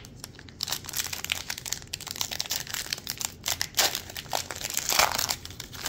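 Foil wrapper of a Panini Select football card pack being crinkled and torn open by hand: a run of crackling and ripping that starts about half a second in and swells twice near the end.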